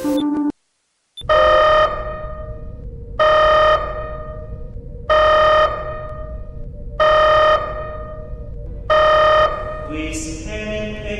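Electronic alarm-like tone from a projection show's soundtrack, sounding five times about two seconds apart over a low rumbling drone, after a brief cut of glitchy static. Near the end a high swishing sound and more tones come in.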